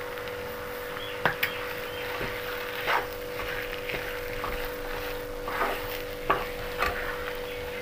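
A spatula stirring sticky cooked sago pearls and sugar in a nonstick pan, with several sharp scrapes and knocks of the spatula against the pan. A steady hum runs underneath.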